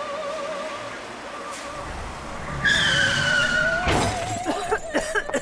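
A car comes up with a low engine rumble and its tyres squeal as it brakes hard, for about a second starting near the middle, ending in a sharp thud; scattered clicks and knocks follow.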